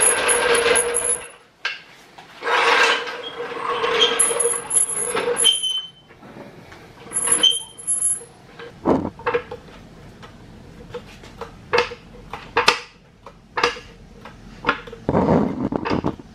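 Steel hydraulic floor jack rattling as it is rolled over a concrete floor and set under a car. Its long handle is then pumped, each stroke giving a short metallic clack as the jack raises the car.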